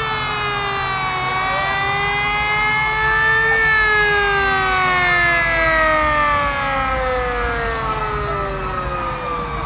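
Fire truck siren wailing in one long sweep, rising slowly for about three and a half seconds and then gliding slowly down, over a steady low rumble.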